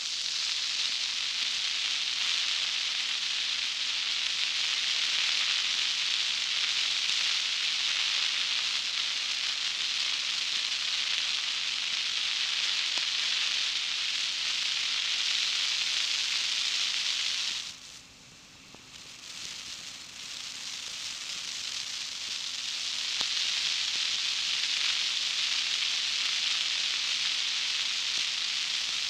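Tyres rolling on a gravel road, a steady hiss of grit under the wheels. It drops away suddenly about two-thirds of the way through, then builds back up over several seconds.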